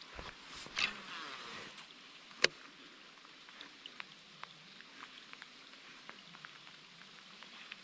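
Light rain: a faint steady hiss with scattered drops ticking, and a single sharp click about two and a half seconds in.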